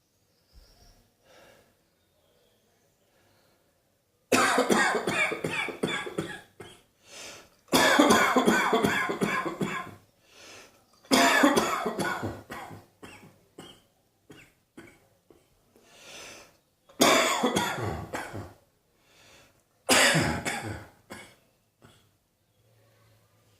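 A person coughing hard in five fits, each a rapid run of coughs lasting about two seconds, with short quiet pauses between.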